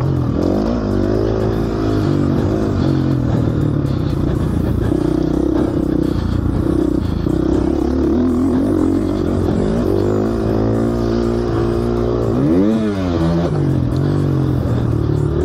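Gas Gas motocross bike's engine being ridden hard, revving up and dropping back again and again as the throttle opens and closes, with a steadier stretch in the middle. A quick sharp rise and fall in pitch comes near the end.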